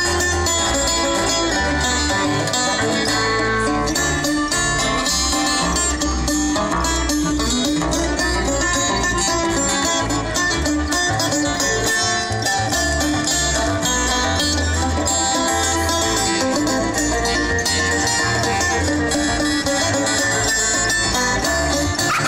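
Acoustic string band playing an instrumental tune: banjo, fiddle and acoustic guitar over an acoustic bass guitar, amplified through small PA speakers.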